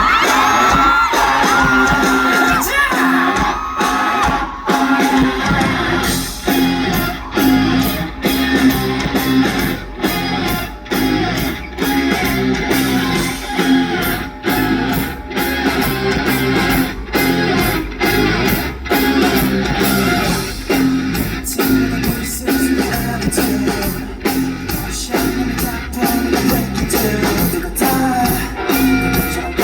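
Live rock band music played loud through a PA: guitar and drums, with a steady drum beat coming in about six seconds in.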